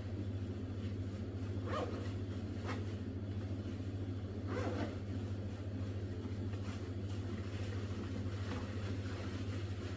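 Steady low hum throughout, with a few brief faint sounds about two seconds and five seconds in.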